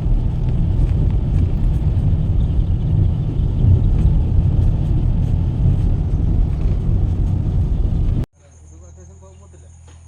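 Loud, steady low rumbling noise that cuts off abruptly about eight seconds in.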